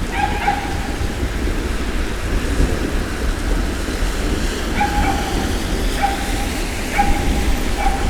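Steady rain hiss over a constant low rumble, with a dog barking five times: once near the start and four times in the second half.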